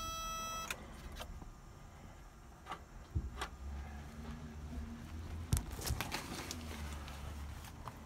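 Seat belt interlock warning buzzer of a 1974 Volkswagen Beetle sounding for under a second at the start, the sign that the interlock is blocking the starter. After it come scattered clicks and knocks and a low, uneven rumble.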